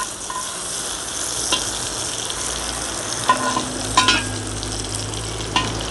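Diced potatoes frying in hot fat in a cast-iron kazan, a steady sizzle. A metal skimmer clinks and scrapes against the pot a few times.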